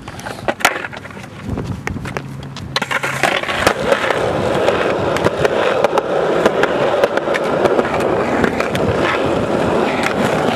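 Skateboard wheels rolling over rough concrete: a steady gritty rolling noise that starts about three seconds in, dotted with small ticks from cracks in the pavement. A few sharp clicks come before it.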